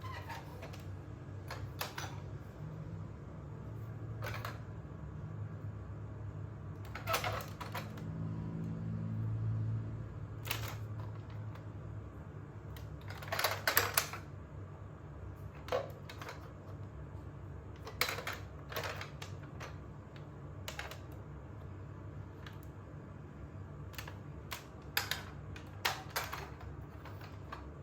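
Scattered clicks and taps of a plastic DX Tridoron toy car being handled, with a denser cluster of clicks about halfway through, over a steady low hum.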